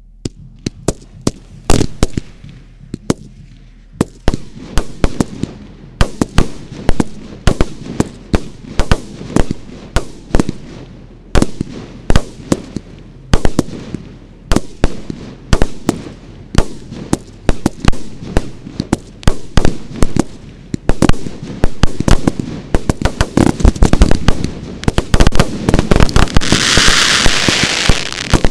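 Ground-fired fireworks going off in rapid succession: a dense run of sharp bangs and pops, several a second. A loud rushing hiss joins in for about two seconds near the end.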